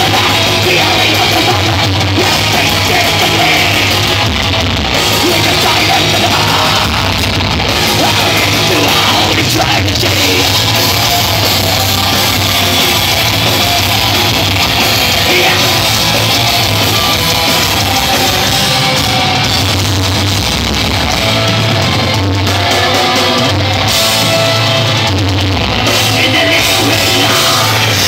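Black metal band playing live and loud, with distorted guitars, drums and shouted vocals, as heard from the crowd.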